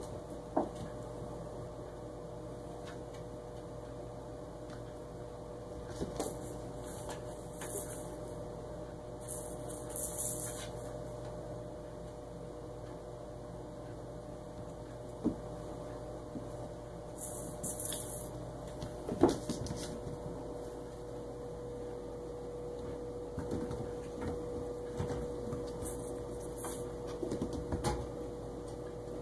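Kittens playing on a floor: scattered light knocks, taps and scratchy scuffles, the sharpest knock a little after halfway. Under them runs a steady electrical hum from a household fan or appliance.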